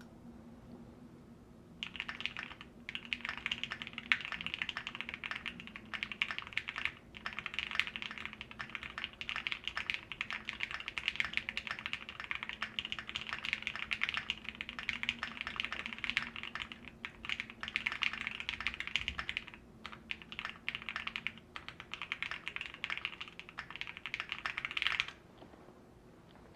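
Typing on a Phantom R2 mechanical keyboard with Gateron Black Ink linear switches and Infinikey WoB keycaps: a fast, steady run of keystrokes that starts about two seconds in, breaks off for short pauses now and then, and stops shortly before the end.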